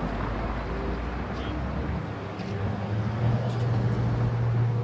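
Street traffic: a vehicle engine running with a steady low hum that shifts up in pitch about two seconds in and grows louder toward the end.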